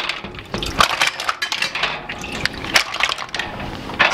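Mussel shells clattering against one another and a stainless steel bowl as the washed, opened mussels are lifted out of a strainer by the handful: a dense, irregular run of clicks and rattles.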